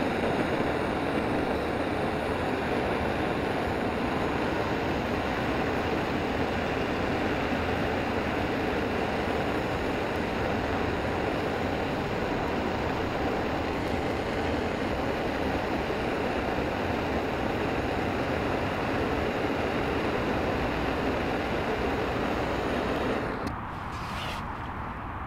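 Gas cartridge burner's flame hissing steadily as it is held to firewood. It stops suddenly near the end, leaving a quieter background noise.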